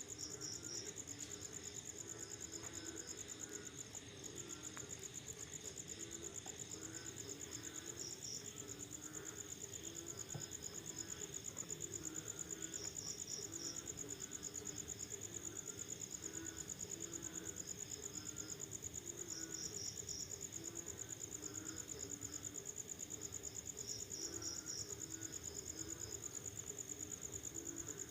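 Crickets trilling in a continuous high-pitched chorus, with frogs calling underneath in short notes repeated over and over.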